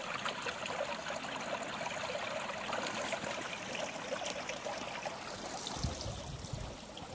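Small snowbound creek running over rocks, a steady light rush of water. Near the end a low rumble comes in under it.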